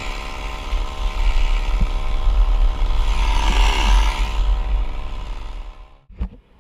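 Top-handle chainsaw running steadily at idle close to the microphone, with wind buffeting the microphone; it cuts off abruptly near the end.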